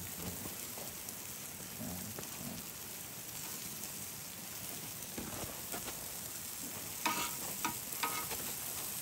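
Food frying: a steady sizzling hiss with light crackles, and a few short sharp sounds near the end.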